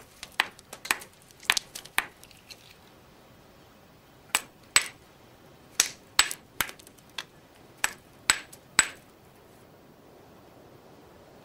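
Stone knapping: a hammerstone striking a stone core in sharp, ringing clinks, a few blows at a time with short pauses between. The blows stop about nine seconds in.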